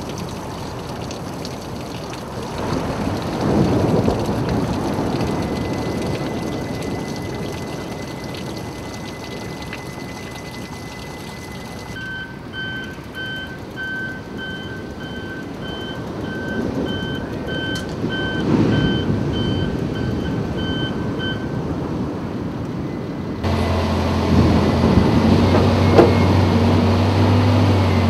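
Water washing over a flooded beach, then a heavy machine's reversing alarm beeping steadily for about ten seconds. Near the end, a large wheel loader's diesel engine starts running loud while it works sand.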